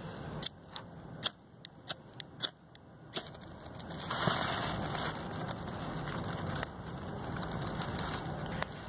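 Small campfire of dry leaves and twigs being lit: several sharp crackles in the first three seconds, then a steady crackling hiss from about four seconds in as the leaves catch.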